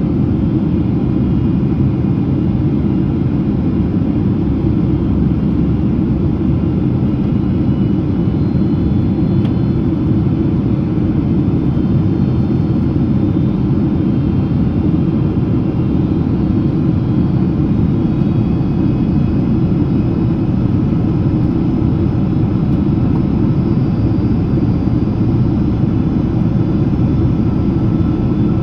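Steady cabin noise inside a Boeing 767-300ER airliner in descent: engine and airflow drone, a dense low rumble with faint thin whines above it.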